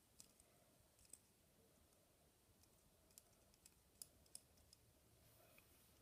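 Near silence broken by a few faint, irregular clicks from a green plastic fidget spinner being spun and handled by fingers.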